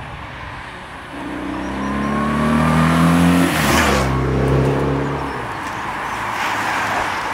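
Race escort motorcycle passing close by: its engine note climbs as it approaches, drops sharply as it goes past a little over three seconds in, and fades away. Afterwards a rising rush of tyre and wheel noise as the peloton of road bikes comes up.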